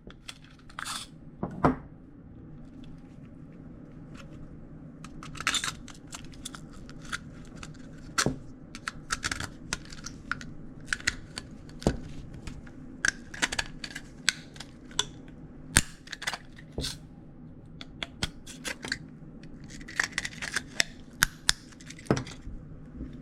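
Hollow plastic toy shell being pried and cut apart by hand with a tool: irregular sharp clicks, snaps and scrapes of hard plastic, some in quick clusters, over a low steady hum.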